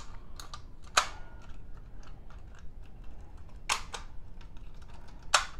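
Notifier BGX-101L fire alarm pull station being reset with its key: small mechanical clicks and rattles, with sharper clicks about a second in, near four seconds and near the end.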